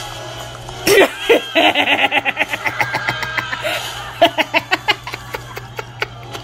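A person laughing hard in a long run of rapid pulses starting about a second in, then a second burst of laughter about four seconds in, over a steady low hum.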